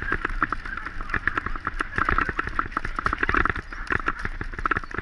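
Bicycle rattling and clattering as a dog tows it over bumpy grass, a fast, irregular run of knocks and clicks.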